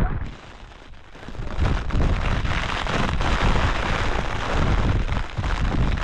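Strong wind buffeting the microphone, a gusty low rumble that drops away briefly about half a second in and then rises again.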